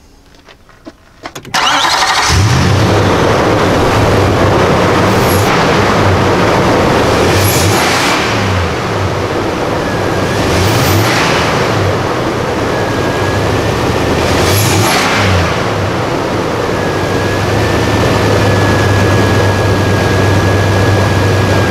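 Nissan Titan's 5.6-litre V8 revving repeatedly under throttle over a loud rushing noise, with a thin steady whistle that comes in on some revs and is held through the last few seconds. The whistle comes from the new 90 mm throttle body kit and is heard when accelerating.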